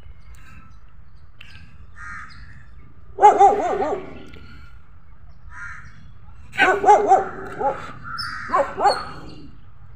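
A dog barking in quick bursts: a run of barks about three seconds in, and more from about six and a half to nine seconds in. Crows caw faintly in between.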